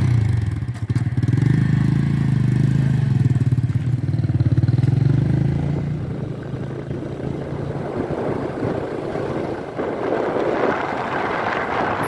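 Diesel engine of a tractor or backhoe loader running close by. Its low, even engine note is strong for about the first half, then drops in level while a rougher, higher-pitched noise takes over.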